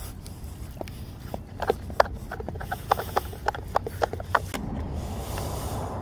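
Irregular light clicks and knocks of hands handling the hull of an RC drag boat and pulling off its hatch, over a low steady rumble.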